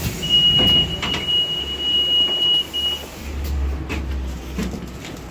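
Trolleybus door warning tone: one steady high beep lasting nearly three seconds, with a brief break just before it stops. A low vehicle hum rises under it, with a few knocks.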